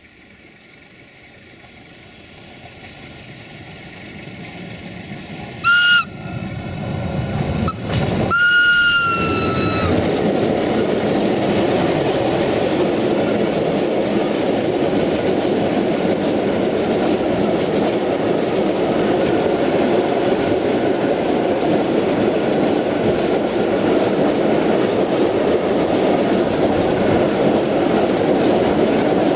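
CFR class 060-DA (LDE2100) Sulzer diesel-electric locomotive coming closer and louder, then sounding its whistle: a short blast about six seconds in and a longer blast of about a second and a half just after eight seconds, dropping in pitch as it ends. Then a long train of freight hopper wagons passing close by with a steady, loud rumble of wheels on rail.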